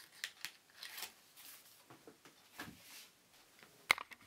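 Gold Bicycle playing cards and their cardboard tuck box being handled, the deck slid into the box with soft scattered scrapes and small clicks, and one sharp click near the end.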